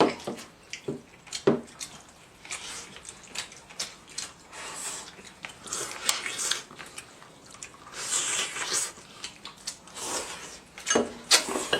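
People eating at a table: clinks and knocks of chopsticks and bowls, with slurping and chewing sounds as they gnaw on stewed bones.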